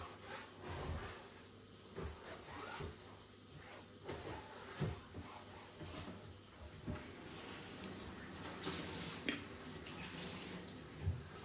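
Washing up at a kitchen sink: scattered light knocks and clatter of things being handled, with a stretch of hissing noise in the last few seconds and a sharper knock near the end.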